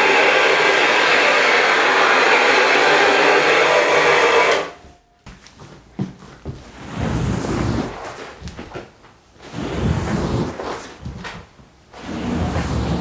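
Upright brush scrubbing machine running steadily as it scrubs a foamed rug, cutting off suddenly about four and a half seconds in. Then a squeegee is pushed across the soapy wet rug in about four scraping strokes, each a second or two long.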